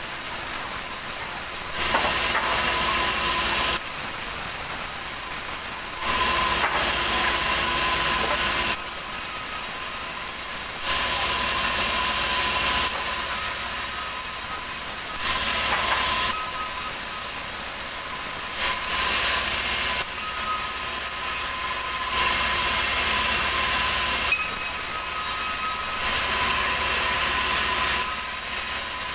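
Sawmill band saw resawing heavy ulin (Bornean ironwood) planks: a steady machine and blade noise that steps up in loudness for two to three seconds at a time, every few seconds, as boards are pushed through the blade.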